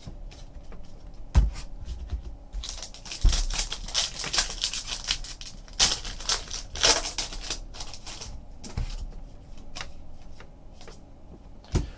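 Foil trading-card pack wrapper crinkling as it is opened, with the cards clicking and sliding against each other as they are handled. Two soft thumps come in the first few seconds, and the crinkling is densest in the middle.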